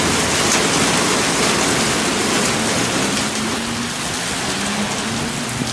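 Heavy rain pouring down in a strong wind, a dense steady hiss of rain.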